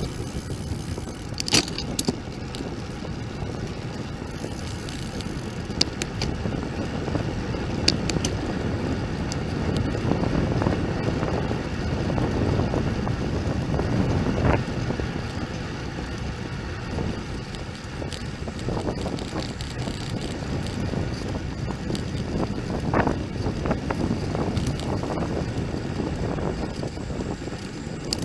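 Wind buffeting a bike-mounted camera's microphone with road noise while riding, rising and falling in waves, and a few sharp clicks in the first eight seconds or so.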